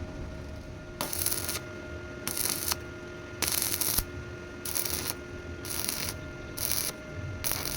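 Rhythmic scraping strokes, each about half a second long, about one a second, seven in all, over a faint steady hum.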